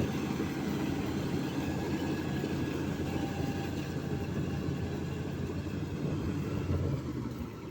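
Combine harvester's diesel engine running steadily with a deep rumble, then dropping off in level about seven seconds in.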